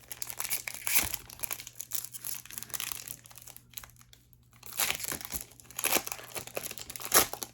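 Foil wrapper of a Pokémon TCG booster pack crinkling in the hands and being torn open, with several sharper rips in the second half.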